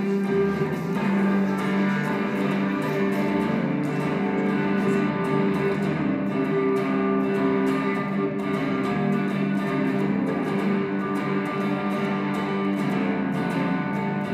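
Instrumental music led by guitar, with long held notes.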